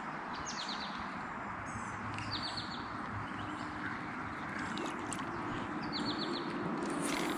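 A bird calling over and over, each call a quick cluster of high chirps, repeated every second or two over a steady outdoor noise. A short burst of noise comes right at the end.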